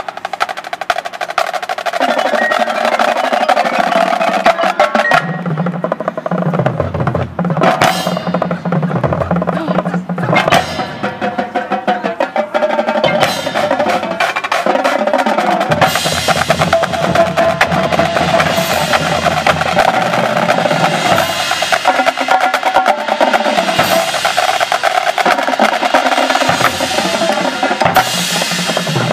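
Marching band playing a field show: drumline and front-ensemble percussion play rapid strokes under sustained notes from the horns, and the low end fills out about five seconds in.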